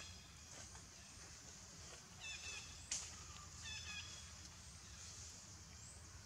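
Faint, short, high-pitched squeaky calls of a baby pig-tailed macaque, falling in pitch, in three brief bouts. There is a single sharp click about three seconds in.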